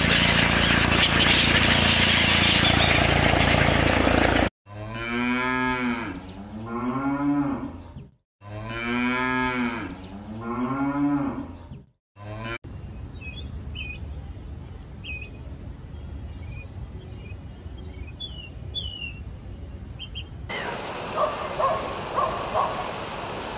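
Cattle mooing: four long moos in two pairs, each rising and then falling in pitch. Before them comes a dense, steady rush of splashing and wing-flapping from a feeding flock of gulls and mallards on water. After them come faint high bird chirps, then short repeated calls from gulls near the end.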